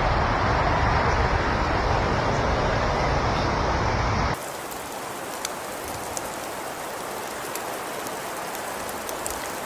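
Steady rushing outdoor noise with a strong low rumble, cutting abruptly about four seconds in to a quieter, even hiss with faint scattered ticks.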